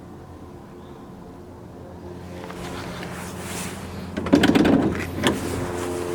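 Low steady hum, then a quick cluster of knocks and clicks about four seconds in and one more sharp knock a second later, like a door or panel being handled.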